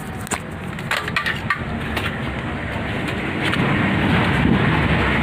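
Metallic clicks as the CVT clutch bell of a Honda Vario scooter is handled. About three seconds in, a steady rough grinding rumble builds as the clutch bell and rear wheel are turned by hand on the driven pulley shaft. The shaft has been worn by a failed bearing that had no brass bush.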